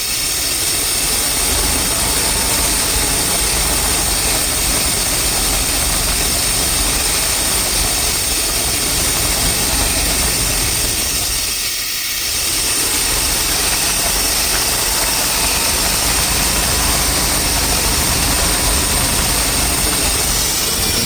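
Chevrolet truck's throttle-body-injected small-block V8 idling steadily, with a brief dip in level about 12 seconds in. The rough idle comes from a vacuum leak, which the owner puts at the intake or throttle body gaskets.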